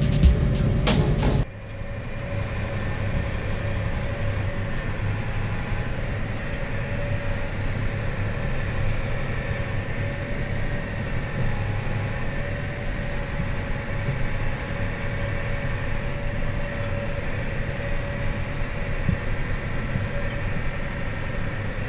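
Background music with a steady beat cuts off about a second and a half in. It gives way to the steady, even drone of a farm tractor's engine running at a constant speed.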